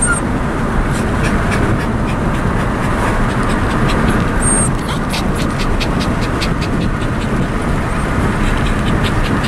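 Wind rushing in through an open car window, with road noise from the moving car, steady and loud throughout. A faint, rapid ticking runs under it in the second half.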